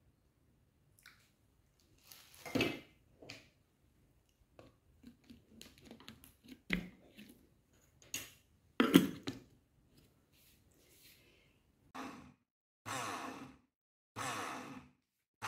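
Spatula scraping and tapping on a glass blender jar and a lid being fitted, with two sharper knocks. From about twelve seconds in, a Philips blender runs in short pulses of about half a second, roughly one a second: its ice-crushing function breaking up frozen strawberries.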